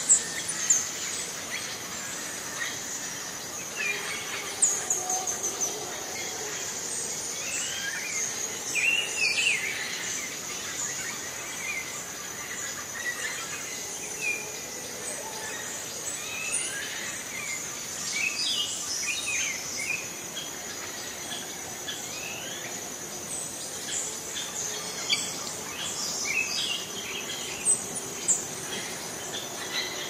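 Rainforest soundscape: many birds chirping and calling in short, scattered phrases over a steady high-pitched insect drone.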